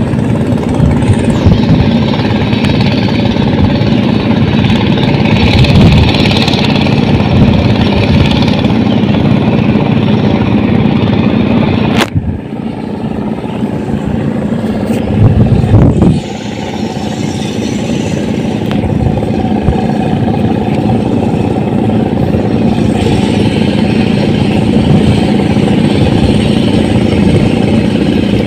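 An engine running steadily and unseen, with a sharp click about twelve seconds in.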